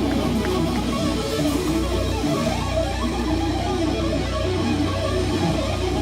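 Live band music led by electric guitar with bass guitar underneath, playing continuously.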